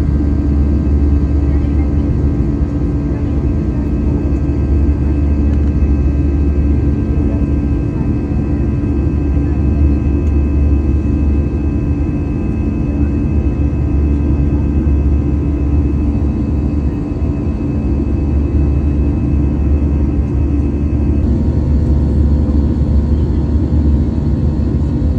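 Steady drone of a jet airliner's engines and rushing air heard from inside the cabin in flight: a deep hum under several steady tones. A few of the higher tones drop out about twenty seconds in.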